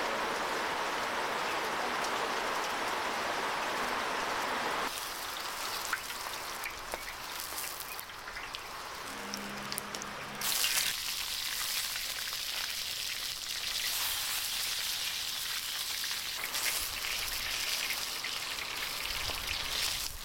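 Steady rain hiss for about the first five seconds, then eggplant strips frying in hot oil in a wide steel pan. The sizzling hiss grows sharply louder about ten seconds in and keeps going.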